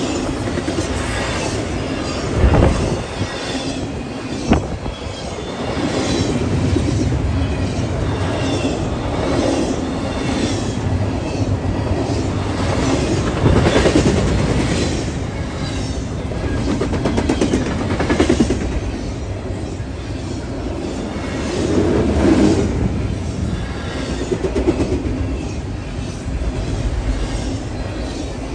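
Double-stack intermodal container well cars of a freight train rolling past close by: a loud, steady rumble of steel wheels on rail that swells and eases as each car goes by, with repeated clacking from the wheels. There are two sharp bangs a few seconds in.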